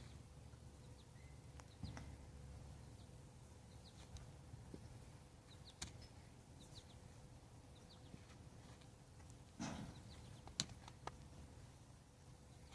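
Near silence: faint room tone with a steady low hum, scattered faint high bird chirps, and a few soft clicks, the loudest about ten seconds in.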